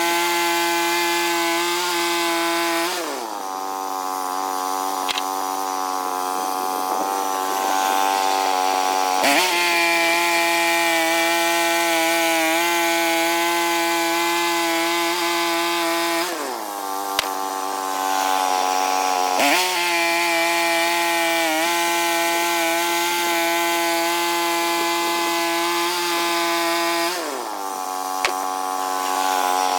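Small sawmill with its engine running steadily. The engine note drops about three seconds in, again past halfway and near the end, and twice jumps sharply back up with a click.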